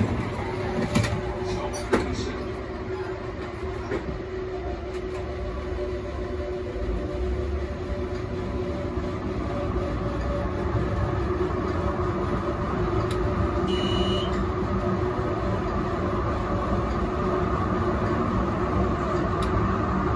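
Melbourne A2-class tram running along street tracks, heard from the driver's cab: a steady rumble with a faint steady whine that slowly grows louder. There are a couple of clicks near the start, and a short high beep about two-thirds of the way through.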